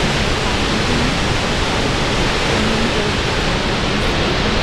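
Snoqualmie Falls in record flood, a loud, steady rush of falling water with no breaks.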